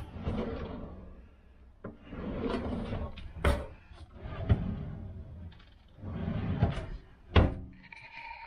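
Kitchen drawers in a mobile home being pulled open and pushed shut several times: rolling, sliding rumbles each marked by sharp knocks.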